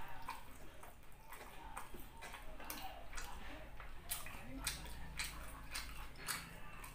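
Close-miked chewing of beef patty and rice: irregular wet mouth clicks and smacks at a low level.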